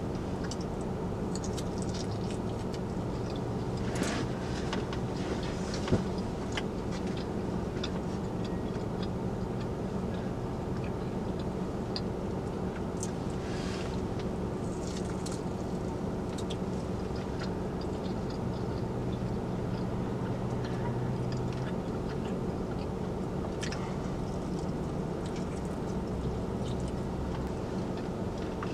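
Chewing and eating sounds, with scattered clicks and short rustles of a takeout container being handled, over a steady low hum of the car's running engine heard from inside the cabin.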